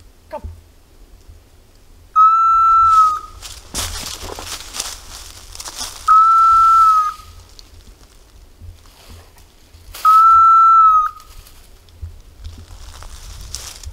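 A hunting dog's beeper collar in point mode, giving a steady electronic beep about a second long every four seconds, the signal that the dog has stopped and is holding a point. Dry brush and leaves crackle between the first two beeps.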